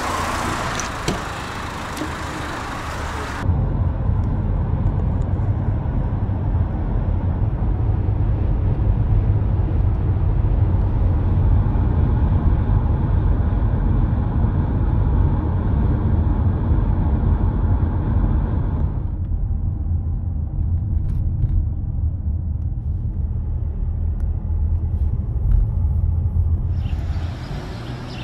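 Open street ambience for the first few seconds, then the steady low rumble of a car driving, heard from inside the car. Near the end it gives way to open-air ambience again.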